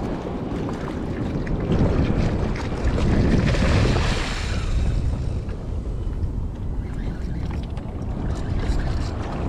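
Wind buffeting the microphone over open-sea water sloshing against a small raft, with a louder rush of water about three to four seconds in.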